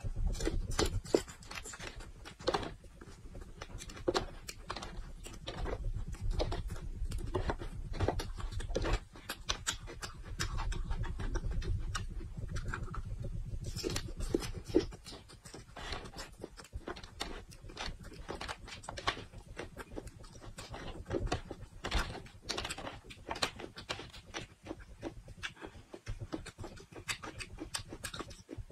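Close-miked crunching and chewing of whole raw red chili peppers: many crisp bites and wet mouth clicks, in an uneven stream.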